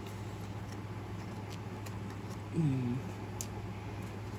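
Faint ticks and clicks of hands fiddling with a small package, trying to get it open, over a steady low hum. A short falling vocal 'mm' from the woman a little past halfway.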